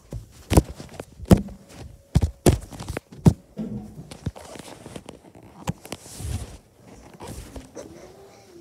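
Quick footsteps and knocks of a person moving about with a phone in hand: a series of sharp irregular thumps, loudest in the first three and a half seconds, then fewer and softer with some scuffing.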